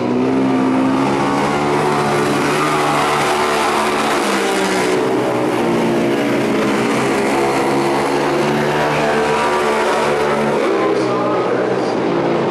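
Engines of two vintage racing motorcycles running hard as the bikes race side by side through a dirt-track turn, a loud, steady engine note that shifts slightly in pitch.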